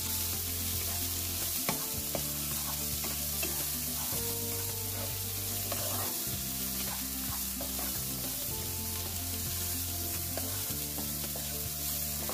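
Sliced chilies, garlic, ginger and bay leaves sizzling in melted margarine in a wok, stirred and scraped around with a wooden spatula, with a few light scrapes and knocks of the spatula on the pan.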